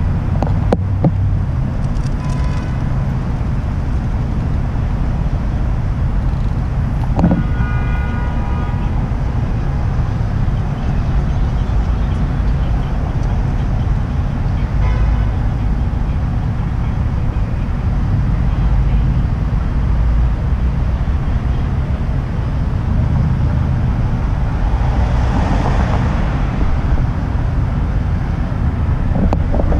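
Steady wind rumble on the microphone and city traffic noise while riding an electric scooter. A vehicle horn toots briefly about seven seconds in.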